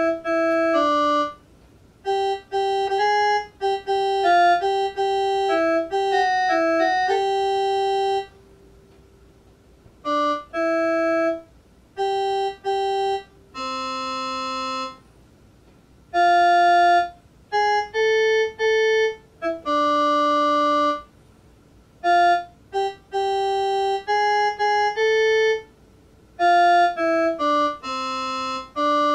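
Electronic organ-like tones playing a simple melody in short phrases, mostly one or two notes at a time. Each note starts and stops abruptly without fading, and the phrases are broken by short pauses, the longest about 8 seconds in.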